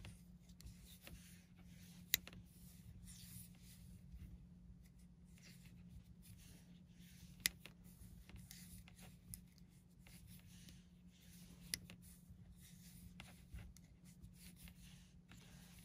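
Faint rustling of bulky cotton yarn sliding over metal circular knitting needles while stitches are purled, with three sharp clicks of the needle tips knocking together. A steady low hum lies underneath.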